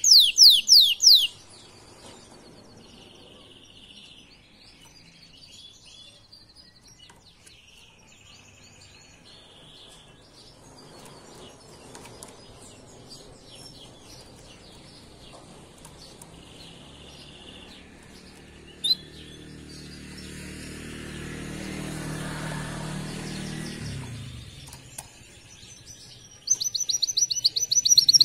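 Caged male domestic canary singing fast, bright, rapidly repeated trills, loud for the first second and again from about two seconds before the end. In between, only faint soft chirps, and a low rumble that swells and dies away in the middle.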